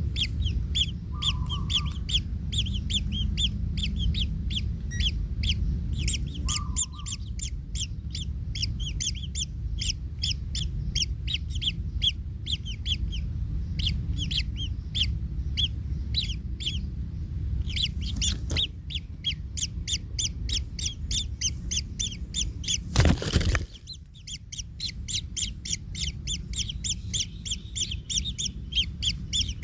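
Kingfisher nestlings calling in rapid, continuous high chirps, several a second, over a steady low rumble. A brief loud knock or rustle breaks in past the halfway point, and a louder one about three-quarters of the way through.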